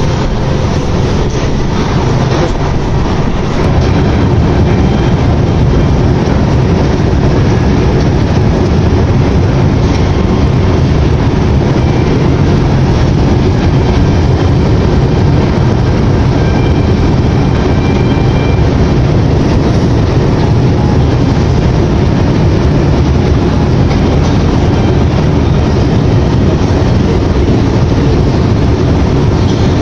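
Loud, steady rumble of a Moscow Metro train in motion.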